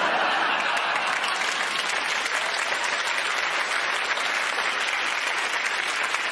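A large theatre audience applauding and laughing, a dense, steady clapping that breaks out at once after a punchline and holds.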